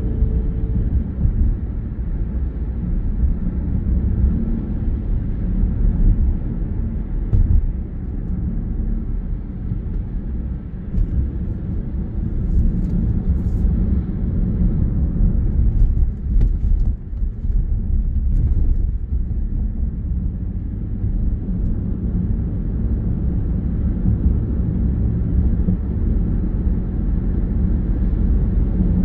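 Steady low rumble of a moving car heard from inside the cabin: road noise from the tyres mixed with the engine running at cruising speed.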